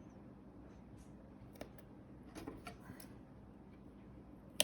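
Faint, scattered soft clicks and rustles of foam tape and cardstock being handled while the tape is stuck on the back of a paper piece.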